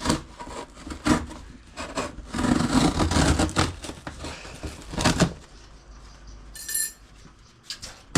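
Anvil packaging being cut and pulled apart by hand: several sharp knocks, a stretch of scraping and rustling in the middle, and a short high squeak near the end.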